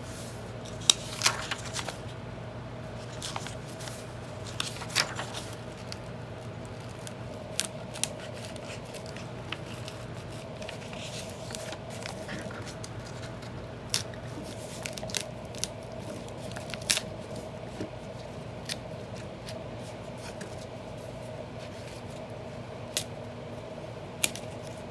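Sporadic sharp clicks and snaps of an old book being worked apart by hand, its paper and brittle binding glue cracking, over a steady low hum.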